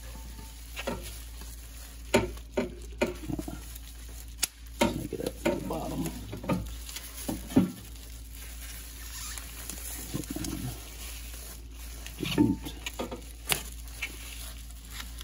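Bubble wrap around an intercooler pipe crinkling and rustling as the pipe is worked up into place among the engine-bay lines, with scattered sharp clicks and a few light knocks.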